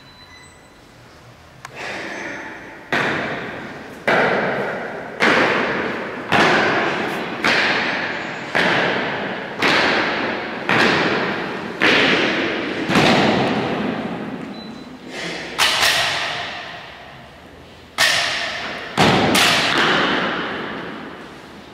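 Boots of a file of soldiers stamping in slow march time on a marble floor, about one heavy stamp a second, each ringing on in a long hall echo. The beat breaks off about two-thirds of the way through, and a few last stamps follow near the end.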